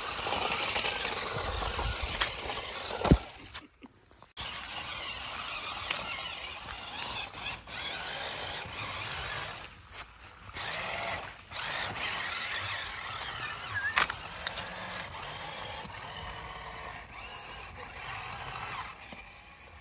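Six-wheeled Fayee FY004A RC army truck driving through mud and shallow water: its small electric motor and gears whir, mixed with splashing from the wheels. There is a sharp knock about three seconds in and a brief drop-out just after it.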